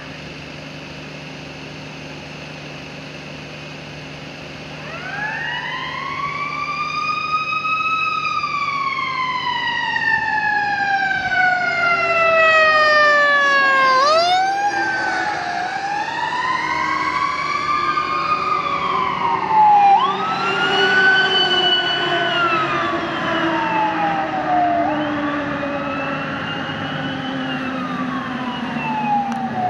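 Emergency vehicle siren wailing. It comes in about five seconds in with a long, slow rise and fall, then cycles faster and shorter, over a steady vehicle engine drone and a lower tone that glides slowly down in the second half.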